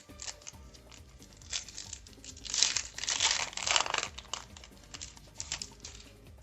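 Foil Yu-Gi-Oh booster pack wrapper crinkling and tearing as it is opened, the loudest crackling about two and a half to four seconds in. Faint background music underneath.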